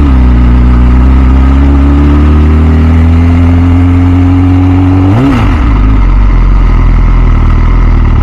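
2006 MV Agusta F4 CC's 1078 cc inline-four engine running under way at low speed, its pitch climbing slowly as the bike gently accelerates. About five seconds in, the pitch jumps up and drops back quickly, then the engine runs steady.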